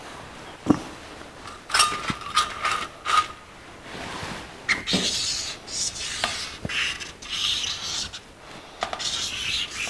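Handling noise of small carburetor parts and a marker pen on a metal parts tray: scattered light clicks and taps, a cluster of them a couple of seconds in, then scratchy rubbing through the second half.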